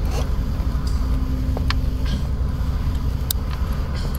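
A few short sharp clicks of parts being handled as hands work among the wiring and intake of a truck's engine bay, over a steady low rumble.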